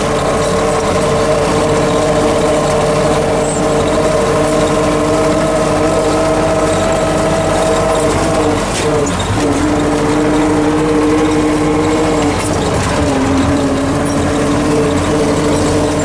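MTZ-50 tractor's four-cylinder diesel engine running under way, heard from inside the cab, with a steady whine over it. The pitch dips briefly twice, about nine and thirteen seconds in.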